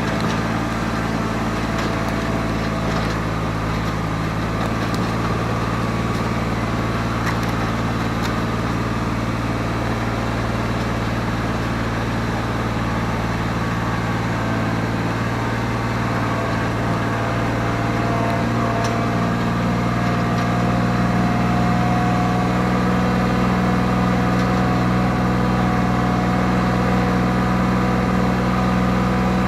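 Tractor's diesel engine running steadily, with a slight change in its note about two-thirds of the way through.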